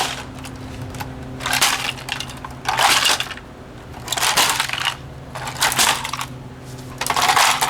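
Brick repeatedly smashing a cheap plastic Panasonic SureTime clock radio: about six crunching blows a second or so apart, the casing cracking and breaking.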